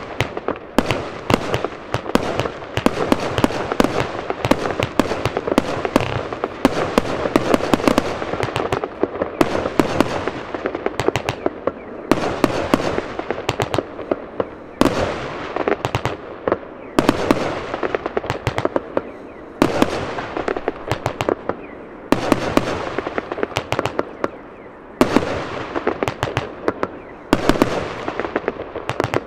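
Lesli "Tsunami of Gold" 144-shot 25 mm firework compound cake firing: a rapid string of shell launches and aerial bursts. The shots come in waves about every two to three seconds.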